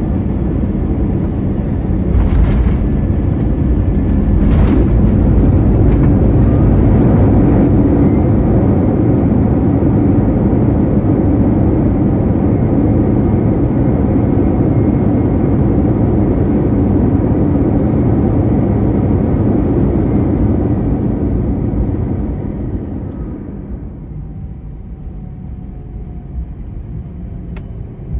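Airbus A321 jet landing: two sharp thumps, about two and four and a half seconds in, then a loud steady roar of engines and runway rumble that dies down about 22 seconds in as the jet slows on the runway.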